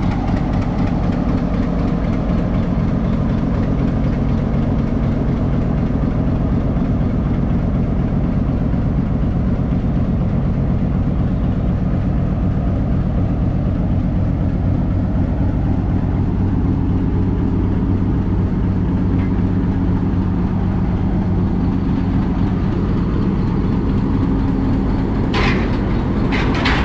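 Diesel-electric locomotive's engine running steadily at idle while it is turned on a hand-pushed railway turntable. Two short, sharp metallic clanks come near the end.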